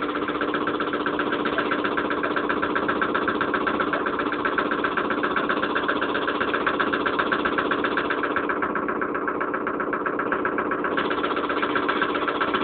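Engine of the vehicle towing a pallet sled over a stubble field, running steadily at an even speed with a fast regular pulse.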